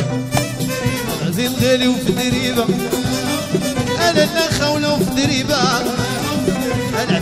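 Moroccan chaabi band playing live: a melody with wavering pitch over a busy, fast percussion beat.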